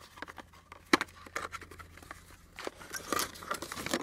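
Small cardboard vacuum-tube box being handled and opened by hand: irregular scraping and rustling of the cardboard flaps, with a sharp click about a second in and denser scraping near the end.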